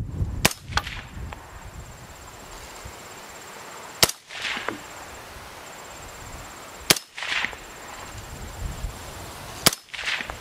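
Four single shots from an AR-15-pattern rifle with an 18-inch barrel, firing 5.56 NATO ammunition at a slow, deliberate pace about three seconds apart. Each sharp report trails off in a short echo.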